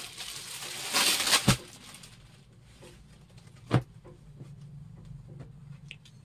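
Silk saree fabric rustling as it is unfolded and spread out, loudest about a second in, with a soft thump at about a second and a half and another near four seconds, then light handling clicks over a faint steady hum.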